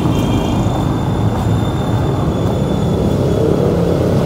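Steady low rumble of a moving road vehicle, heard from on board as it travels along a wet street.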